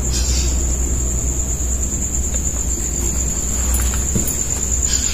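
Crickets chirring steadily in one continuous high-pitched drone, over a low steady rumble. A couple of brief soft scuffs come near the start and near the end.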